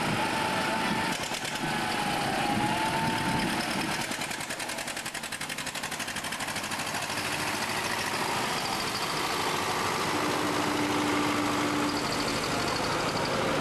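Engine of a small vintage tractor running as it drives slowly past at close range, with a rapid, even beat in the middle of the passage.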